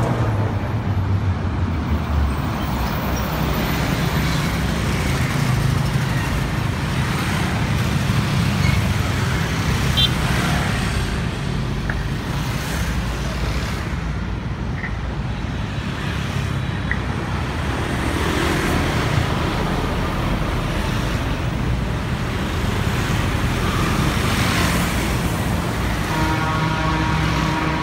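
Steady roadside traffic: heavy diesel trucks, cars and motorbikes passing one after another, with a deep engine rumble and tyre noise rising and falling as each goes by. Near the end a semi-tractor hauling an empty flatbed trailer passes with a motorbike, adding a clear pitched engine note.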